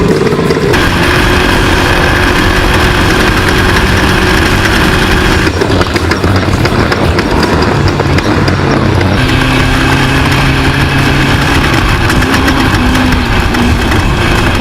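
Class 10 off-road race buggy engine running loud and steady, its pitch shifting abruptly a few times.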